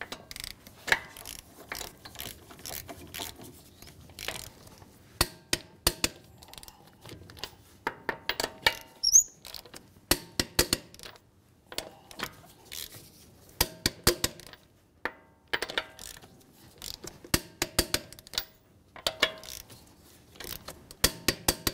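Torque wrench ratcheting and clicking on lug nuts as they are torqued to 75 foot-pounds, sharp clicks coming in short clusters, one nut after another.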